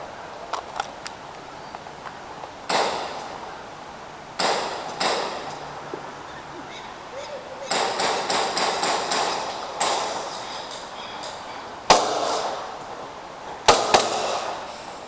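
Gas-powered airsoft pistols firing. There are a few single shots, then a quick string of about seven shots in the middle, and two shots in quick succession near the end.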